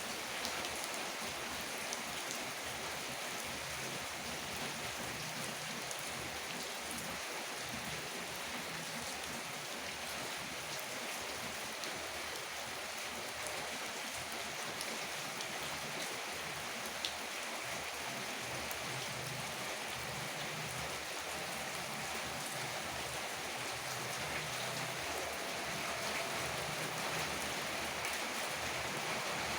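Heavy rain falling steadily, a dense even hiss with the odd sharper drip, growing a little louder near the end.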